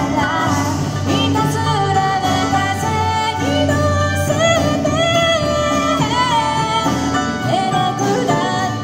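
Live band music: a woman singing lead over melodicas, acoustic guitar and drums.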